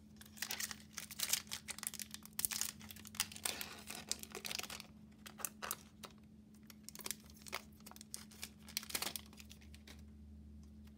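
Foil wrapper of a Magic: The Gathering collector booster pack crinkling and tearing as it is opened, dense for the first few seconds. After that come sparser crackles as the cards are slid out of the wrapper and handled.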